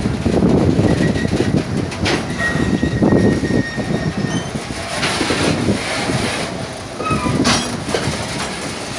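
Loaded container wagons of a freight train carrying mineral concentrate rolling past at close range, a steady rumble with occasional clanks. Brief thin high wheel squeals come in during the first half and again near the end.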